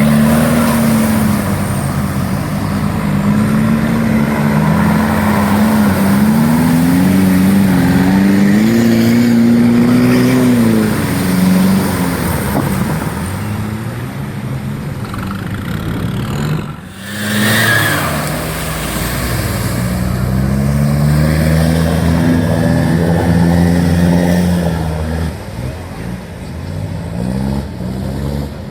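Off-road 4x4 engine revving up and down under load, its pitch rising and falling again and again, with a sudden short break about two-thirds of the way through.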